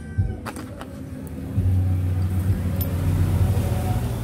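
A motor vehicle's engine running nearby as a steady low rumble, which comes in and grows louder about a second and a half in. A few light clicks are heard just before it.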